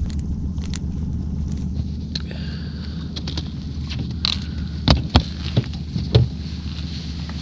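Small boat's motor running steadily at trolling speed as a low hum, with a few sharp knocks and clatters from a caught walleye and gear being handled in the boat, about five to six seconds in.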